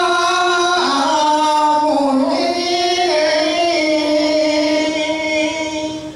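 A solo high voice singing a Balinese song in long, held notes, the pitch stepping down about a second in and back up later.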